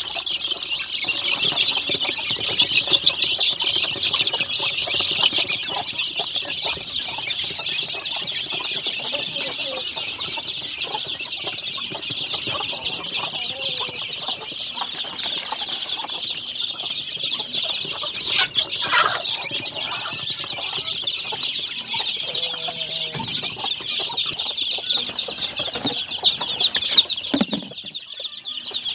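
A brood of young chicks peeping nonstop: a dense chorus of high-pitched cheeps that dips briefly near the end.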